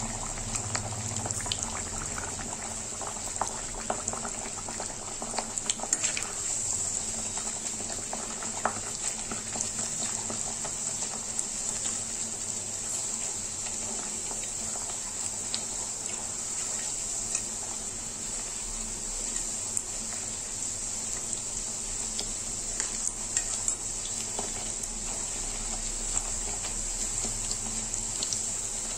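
Bhatura deep-frying in hot oil in a steel kadai: steady sizzling and bubbling with scattered small crackles, as a perforated slotted spoon lightly presses the dough down into the oil.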